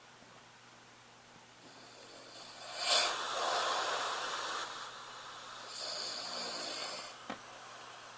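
A man snoring in his sleep with his mouth taped shut, recorded on a smartphone: a loud snorting snore about three seconds in, then a hissing breath about six seconds in, and a short click near the end.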